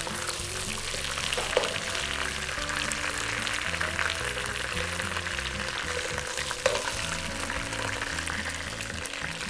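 Chicken pieces frying in hot oil in a pot, a steady sizzle, with a couple of sharp clicks of metal tongs against the pot as pieces are lifted out.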